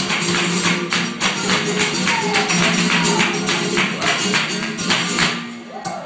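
Flamenco music: rapid percussive strikes over sustained low notes. The strikes drop out about five and a half seconds in.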